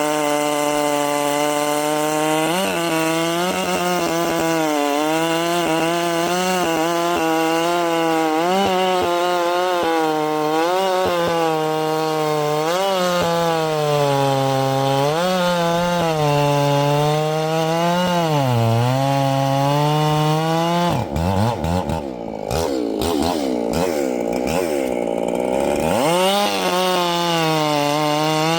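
Ported Echo CS-7310 two-stroke chainsaw running at high revs while cutting, its pitch dipping every couple of seconds as the chain loads in the wood. About three quarters of the way through, the engine speed falls and wavers for a few seconds, then climbs back to full throttle.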